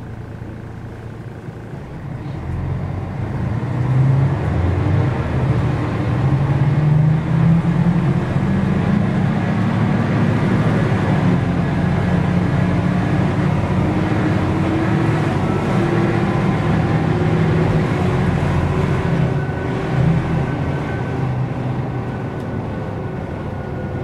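Mercedes-Benz O405 N² city bus's diesel engine running. Its note grows louder and climbs in pitch from about two seconds in, holds steady, then eases off near the end.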